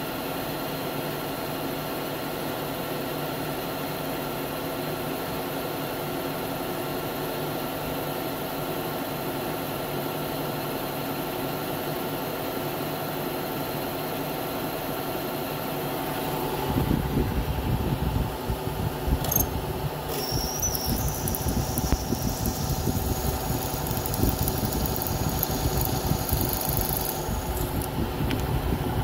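Milling machine spindle running with a steady motor hum. About two-thirds of the way through, a drill bit feeds into the cast aluminium transmission housing and a louder, uneven cutting noise takes over.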